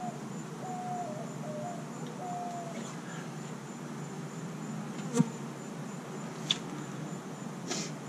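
Honeybees buzzing steadily around an opened hive, with a sharp knock about five seconds in and a lighter click a second later.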